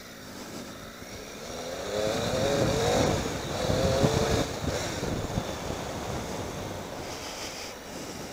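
Triumph Tiger 800 XCx's three-cylinder engine accelerating hard away from walking pace, its pitch rising twice through a gear change about two to four seconds in, then easing off into steadier running with wind noise.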